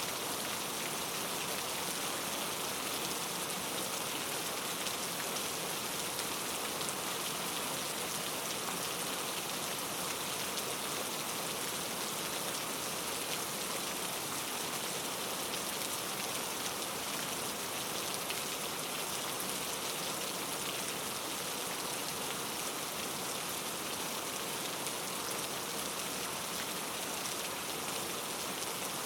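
Steady rain falling: an even, unbroken hiss of drops with fine ticks of individual drops and no thunder.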